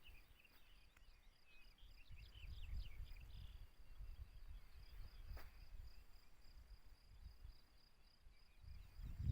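Small birds chirping in the first few seconds over a steady, pulsing high insect trill, with a low rumble of wind on the microphone and a single faint click about five seconds in.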